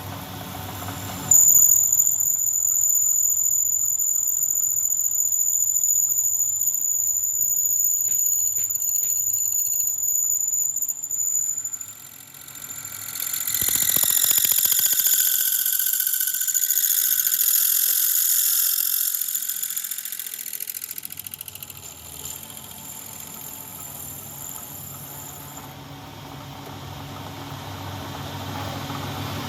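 Metal being worked on a motorcycle wheel hub gives a steady high-pitched squeal for about ten seconds. It breaks off and is followed by a harsher, wavering hiss of metal cutting that fades out after about eight seconds.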